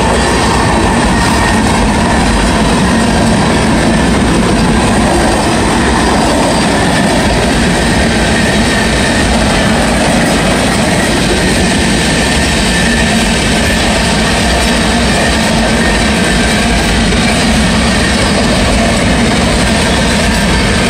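Freight train's covered hopper and gondola cars rolling past: a loud, steady rumble and rattle of steel wheels on the rails, with a faint high ringing from the wheels.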